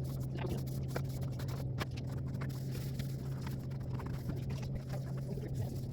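A steady low hum, with scattered light clicks and taps from items being handled and scraped.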